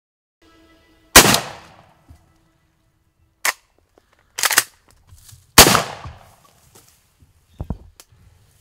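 Two shotgun blasts about four and a half seconds apart, each with a fading echo, with a few shorter, sharper knocks between and after them.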